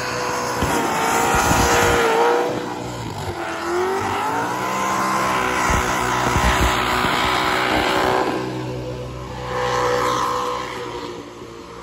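Supercharged Holden Commodore engine revving hard during a burnout, over the noise of spinning tyres. The revs waver, dip between about two and four seconds in, then climb again, and ease off near the end.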